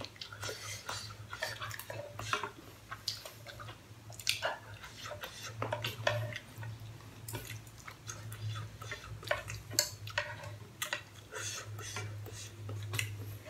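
Wooden chopsticks and a spoon clicking and scraping against a saucepan of pasta, in scattered, irregular taps, over a steady low hum.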